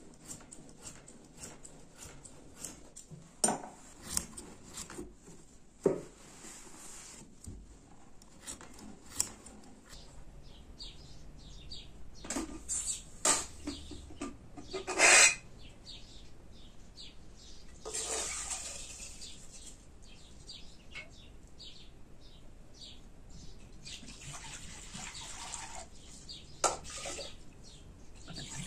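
Pots, a lid and utensils being handled, giving scattered clinks and knocks, with one louder clatter about halfway through, and water poured from a clay jug into a cup near the end. Bird chirps come through now and then.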